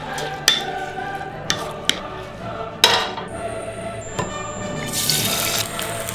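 Background music over kitchen sounds: several sharp clicks and knocks, the loudest nearly three seconds in, and about five seconds in a brief hissing sizzle from an egg frying in hot oil in a non-stick pan.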